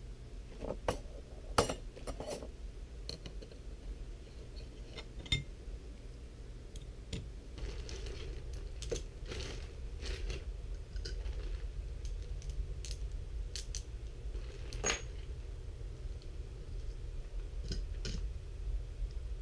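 Old motorcycle clutch plates clinking as they are handled and slipped into a plastic zip-top bag, the bag crinkling, with scattered sharp metallic clicks throughout. A steady low hum lies underneath.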